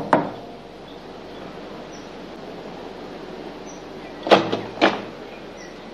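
Knocking on a wooden panelled front door: two quick raps about half a second apart, a little over four seconds in, over a faint steady hiss.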